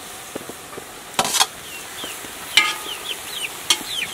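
Chickens cheeping: a run of short, falling chirps through the second half. Over them, a metal basin scrapes and clanks as chopped potato greens are tipped into a cooking pot, loudest about a second in, with sharp clinks a little later.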